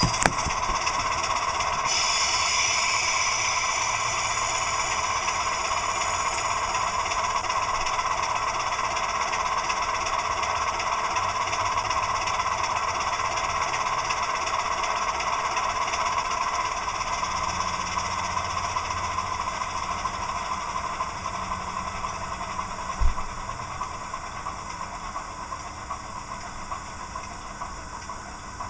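DCC sound decoder in a Heljan OO gauge Class 26 model locomotive playing a Sulzer diesel engine idling through the model's small speaker, then winding down over the last several seconds as the engine is shut down. A single sharp click about two-thirds of the way through.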